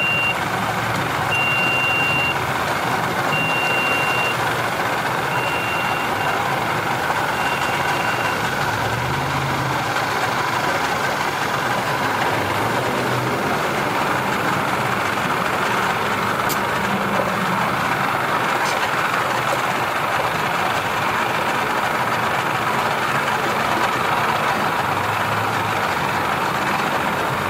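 Electronic warning beeps, each about a second long and coming about every two seconds, which stop about eight seconds in; the speaker took this beeping for a jet ski's. Under it a vehicle engine idles with a steady low rumble.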